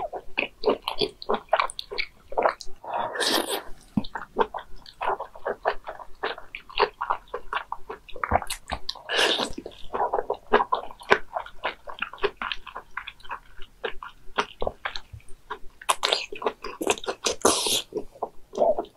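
Close-miked wet eating of a giant raw oyster: squelchy chewing and lip smacks, broken by several longer slurping sucks about three seconds in, about nine seconds in, and again near the end.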